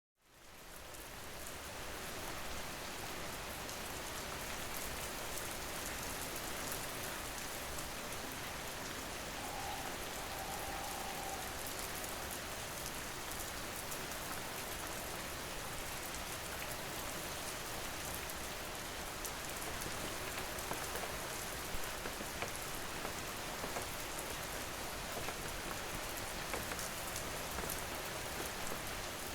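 Steady rainfall fading in over the first couple of seconds, with individual drop hits standing out more often in the second half.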